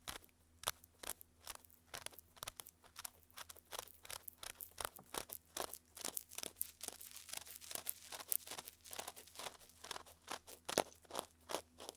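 Cotton swab scratching and rubbing in the ear of a 3Dio binaural microphone: dense crackly strokes, several a second, as simulated ear cleaning of earwax.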